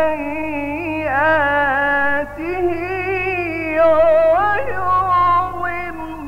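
A man's voice reciting the Quran in the melodic mujawwad style: one drawn-out phrase of long held notes that slide and waver in pitch, with no instruments.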